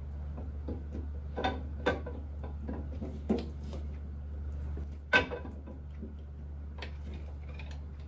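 Camshaft being worked into the engine block's cam bearings, giving several light metallic clicks and knocks, the loudest about five seconds in. A steady low hum runs underneath.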